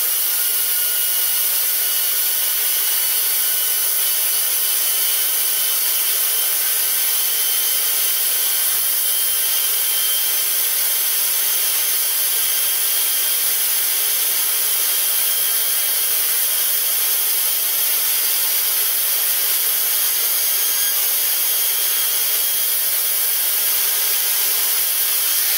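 Small brass gyroscope rotor driven by an air jet, spinning at about 85,000 to 95,000 rpm: a steady rush of air with faint high whining tones that creep up in pitch over the first several seconds as the rotor speeds up, then hold steady.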